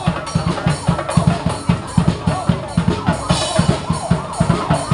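Parade marching drums, bass drum and snare, beating a fast, steady rhythm. In the second half a quickly repeating rising-and-falling tone sounds over the drums.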